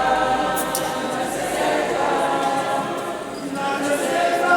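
Several voices singing a chant-like refrain together, unaccompanied.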